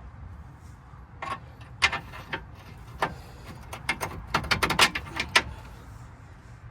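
Irregular metallic clinks and knocks of hand tools and suspension parts being handled, a dozen or so sharp hits bunched between about one and five and a half seconds in, thickest near the end.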